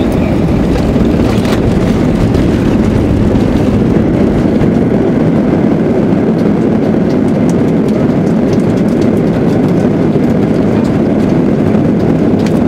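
Airbus A320 cabin noise while rolling on the ground after touchdown: a loud, steady rumble of the CFM56 engines and the wheels on the pavement, with light knocks and rattles.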